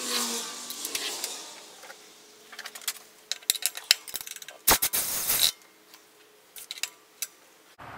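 Cordless drill motor running and winding down as the trigger is released, followed by a scatter of sharp mechanical clicks and rattles with one loud clack about five seconds in.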